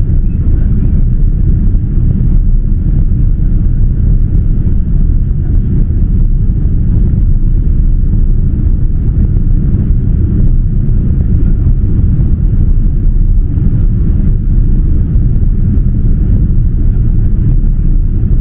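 Steady cabin rumble of a Boeing 787-9 airliner in flight during descent: a loud, even roar of airflow and engine noise, heavy in the low end.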